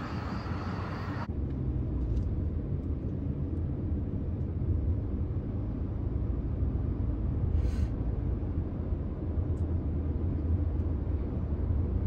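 Steady low rumble of a car driving, engine and tyre noise heard from inside the cabin. About a second in, a higher hiss drops away abruptly, leaving only the low rumble.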